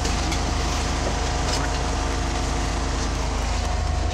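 Scania OmniLink CL94UB city bus's five-cylinder engine running steadily under way, with tyre and road noise, heard from inside the passenger cabin.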